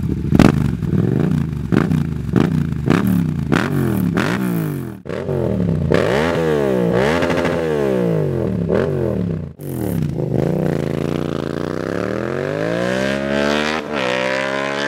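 Yamaha MT-07's parallel-twin engine through a Dominator aftermarket exhaust, revved in quick throttle blips, about two a second. Near the end it runs under load with the pitch rising steadily as it accelerates.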